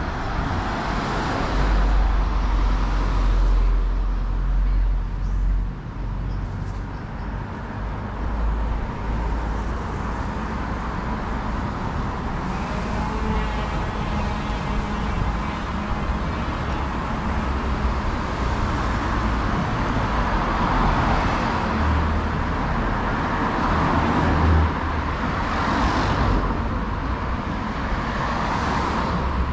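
Street traffic passing on a road: a van drives past close by in the first few seconds with a low engine and tyre rumble, then more cars go by with rising and falling road noise.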